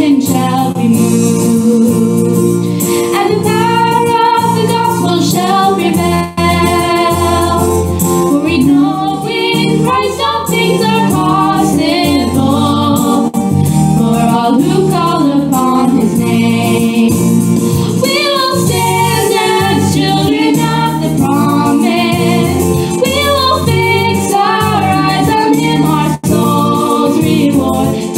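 Voices singing a gospel worship song over sustained instrumental accompaniment.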